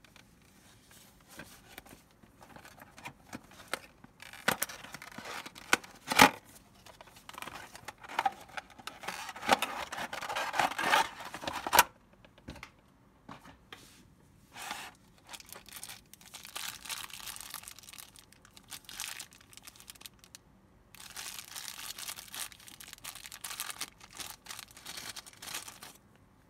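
Flashlight packaging being opened and handled: clear plastic blister tray and a small plastic bag crinkling and rustling in irregular bursts, with one sharp click about six seconds in.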